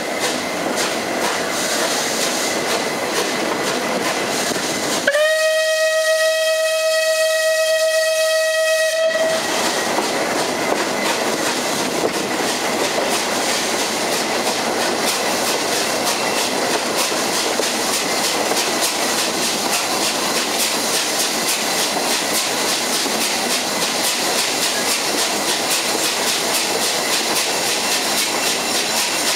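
West Country class steam locomotive 'Braunton' running at speed, a steady rush of exhaust and wheels on rail. About five seconds in, its whistle sounds once for about four seconds, a single note that rises quickly at the start.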